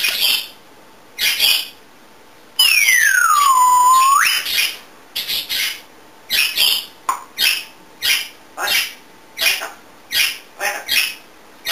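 African grey parrot giving short, harsh squawks over and over, one to two a second, broken a few seconds in by one long, loud whistle that slides down and then back up.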